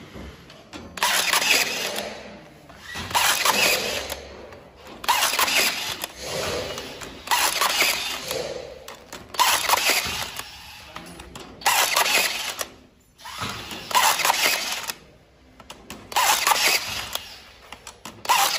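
Cordless rebar tying tool tying rebar crossings one after another, about nine ties roughly two seconds apart. Each tie is a short motor burst of about a second as the tool wraps wire around the crossing, twists it tight and cuts it.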